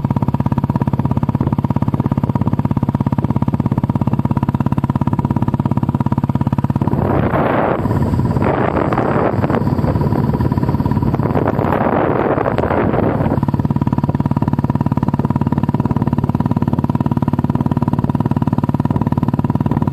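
Royal Enfield Classic 350's single-cylinder engine running at steady speed on the move through an aftermarket exhaust silencer, with a rushing noise swelling over it in bursts about midway through.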